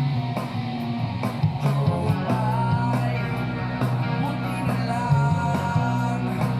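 Background rock music with guitar, drums and a steady bass.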